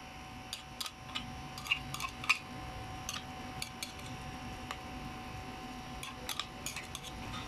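Pork adobo simmering in a pot, the fat and liquid sputtering in irregular sharp pops and crackles over a low steady bubbling. The pops come thickest in the first couple of seconds, the loudest about two seconds in, and again near the end.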